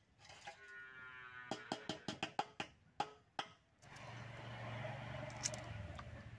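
Boiled duck eggshells cracking and tapping against a stainless-steel bowl: a quick run of about ten sharp clicks over two seconds, followed by a steady low hum.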